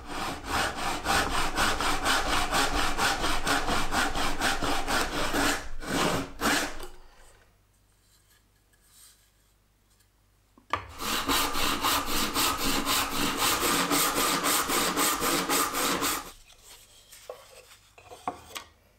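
Hand saw cutting through a wooden board in rapid, even strokes: two runs of sawing separated by a pause of about four seconds, then a few light knocks near the end.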